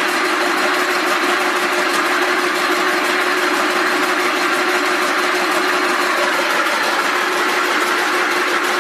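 Rope braiding machine running at production speed, a steady, even mechanical rattle with a constant hum underneath, while braided rope winds onto the take-up spool.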